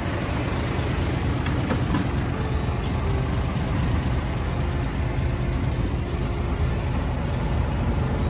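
Isuzu Giga diesel truck engine idling steadily.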